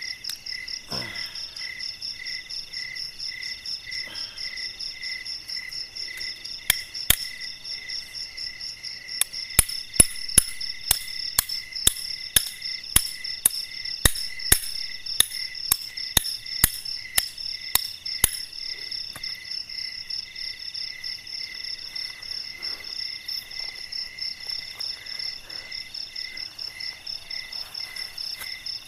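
A steady, pulsing chorus of night insects, crickets by their trill, with a run of about twenty sharp knocks at roughly two a second through the middle: a machete chopping bamboo sticks.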